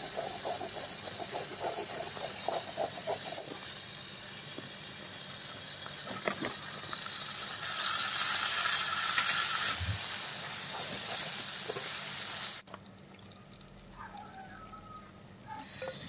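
Onions frying in a clay pot, stirred and scraped with a wooden spatula. About eight seconds in, marinated chicken pieces go into the hot oil and set off a loud, steady sizzle, which cuts off suddenly a few seconds later.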